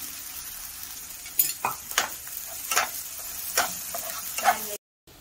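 Spice masala sizzling in oil in a nonstick kadhai while a metal slotted spatula stirs ground peanut powder into it. The spatula scrapes and knocks against the pan about six times, starting about a second and a half in. The sound cuts out briefly near the end.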